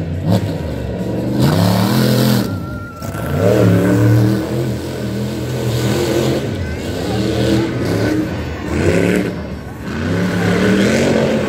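Monster truck engines racing at full throttle, revving hard, their pitch climbing and falling again several times.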